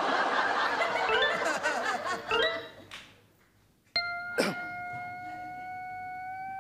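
Studio audience laughter over stage music, ending in a short rising musical sting; after a brief hush, a steady held note begins suddenly about four seconds in, with a single click shortly after, as a comic suspense sound effect.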